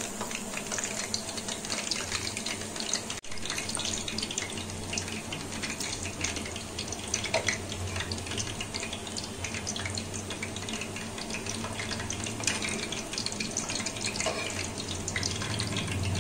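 Hot cooking oil sizzling and crackling steadily around mathri deep-frying in a pan.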